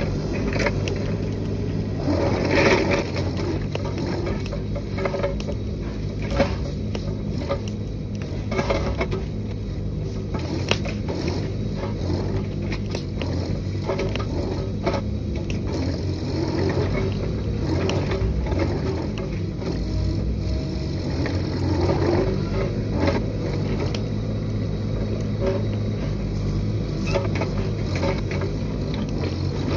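Mini excavator's diesel engine running steadily, with irregular clanks, knocks and scraping as the machine works.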